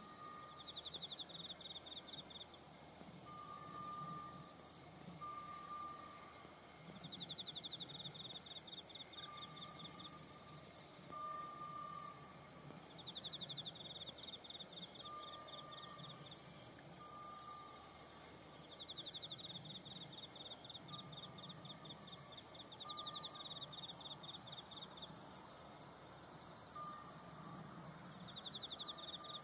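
Insects chirping in a rural field: a buzzing, pulsed trill about two seconds long that repeats every five or six seconds, with shorter lower chirps in pairs between the trills.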